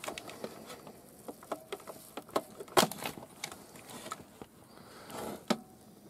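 Scattered small clicks and knocks of a transistor radio's opened plastic case and circuit board being handled, with a sharper knock about three seconds in and another near the end.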